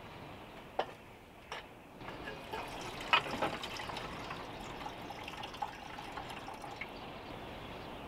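Water pouring from a metal bottle into a metal kettle, starting about two seconds in with small splashes, after two sharp clicks.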